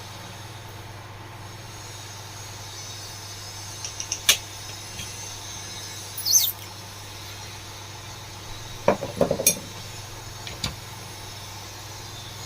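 Light metal clinks and taps from a table fan's motor parts as its cover is worked off, with a short high scrape about six seconds in and a quick cluster of knocks about nine seconds in, over a steady low hum.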